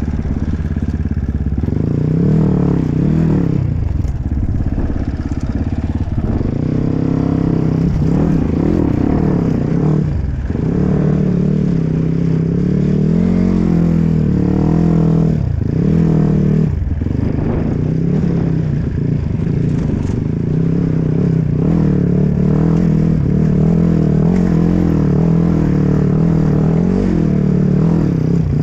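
Enduro dirt bike engine under riding load off-road, its pitch rising and falling with the throttle, with brief drops in revs as the throttle is shut off several times.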